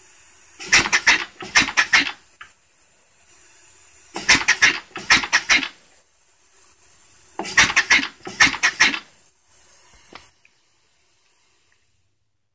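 Briggs & Stratton single-cylinder engine converted to steam, running on compressed air: three short runs of quick exhaust puffs, about five puffs each, with a faint steady air hiss between them that stops near the end.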